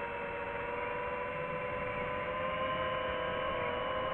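FPV quadcopter's electric motors and propellers whining in flight: several close pitches held nearly level, wavering slightly up and down.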